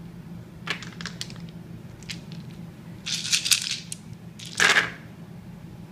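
King of Tokyo dice clicking as they are gathered up, then rattled and rolled onto the table: a clatter about three seconds in and a louder one near five seconds, for the first roll of a turn.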